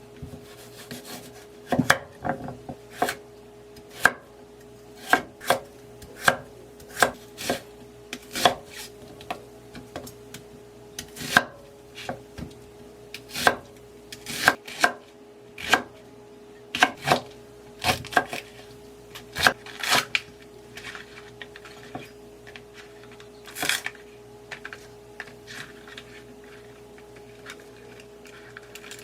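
Kitchen knife chopping on a cutting board in slow, unevenly spaced single strokes, roughly one a second, stopping a few seconds before the end, over a faint steady hum.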